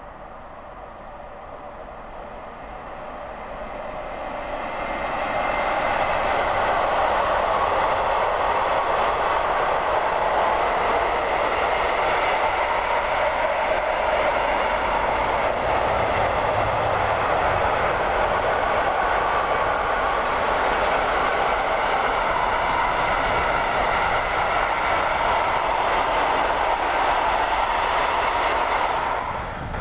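Freight train behind an electric locomotive rolling past, its wheels on the rails. The noise grows louder over the first several seconds as the train approaches, then holds as a steady, loud rolling sound while the long string of wagons, car-carriers among them, goes by, and cuts off suddenly right at the end.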